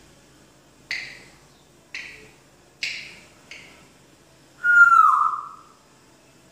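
African grey parrot making four short, sharp sounds, each fading quickly, then one loud whistle that glides down in pitch about four and a half seconds in.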